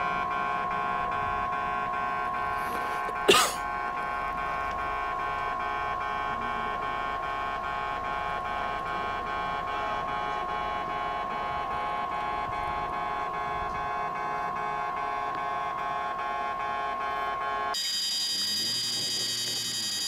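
Japanese railway level-crossing warning bell ringing on and on, an electronic two-tone alarm warning of an approaching train. A single sharp click sounds about three seconds in, and near the end the ringing switches abruptly to a higher-pitched tone.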